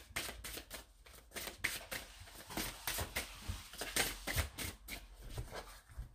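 A deck of fortune-telling cards being shuffled by hand: a quick run of card flicks and slaps with a rustle of sliding cards in the middle.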